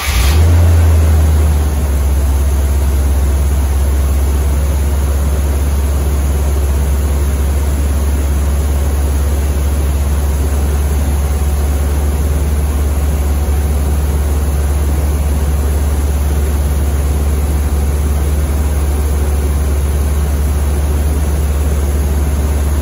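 Corvette C3's 350 small-block V8 catching right at the start and running on its freshly rebuilt Quadrajet carburetor, a little faster for about a second and a half before settling into a steady idle.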